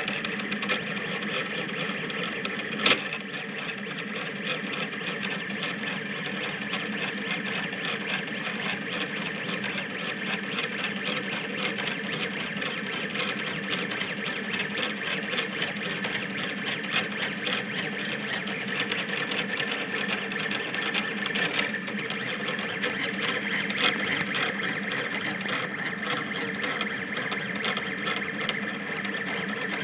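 Rostock delta 3D printer's stepper motors whirring and buzzing as the effector makes fast, quick-changing moves printing infill, with one sharp click about three seconds in.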